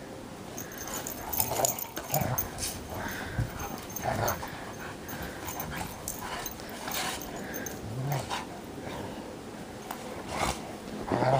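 Two Bernese Mountain Dogs play-wrestling in snow, making short, irregular grunts and growls, loudest about one and a half seconds in and near the end.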